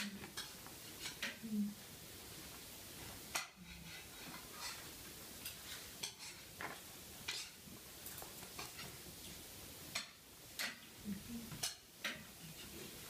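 Irregular clicks and taps as a Yorkshire terrier puppy plays with a toy ball on a hard terrazzo floor: claws and the ball knocking against the stone, in scattered bursts with quiet gaps.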